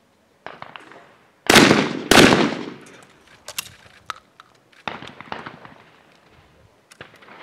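Two shotgun shots fired about two-thirds of a second apart, a skeet double, each with a long echoing tail. A softer sharp knock comes just before them, and a few lighter clicks and knocks follow.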